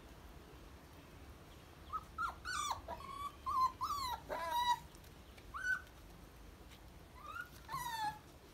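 Puppies whining: a run of short, high-pitched whimpers from about two seconds in, a pause, then a few more near the end.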